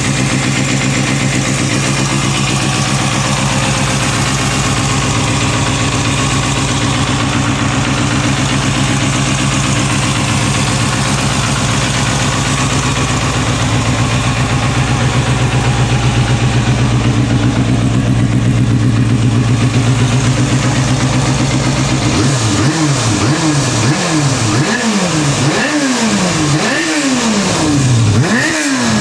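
Kawasaki Balius 250 cc inline-four motorcycle engine, fitted with an OVER aftermarket silencer, idling steadily, its idle rising slightly a little under halfway through. For the last several seconds the throttle is blipped repeatedly, about once a second, the revs rising and falling each time.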